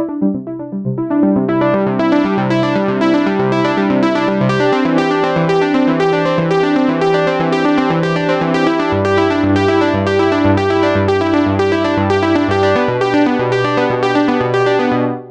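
Roland J-6 chord synthesizer playing a factory sound: pulsing chords, about two to three a second, over a bass note that changes three times. The tone brightens about a second and a half in, and the pattern stops suddenly near the end.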